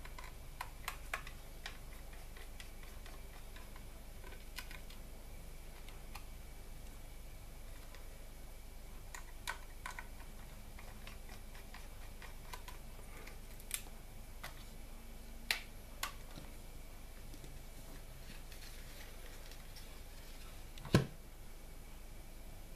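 Sparse small clicks and taps as a small screwdriver and the metal bracket, caddy and optical drive are handled on a tabletop, with one sharper knock near the end.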